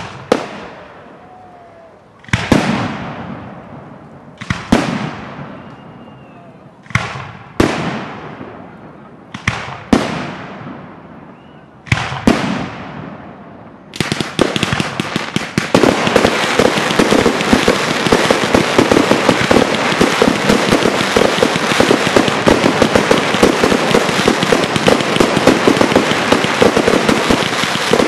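Fireworks display: about nine aerial shell bursts, each a sharp bang with a long echoing tail, one to three seconds apart. About fourteen seconds in, a dense crackling of many rapid small pops starts and keeps going.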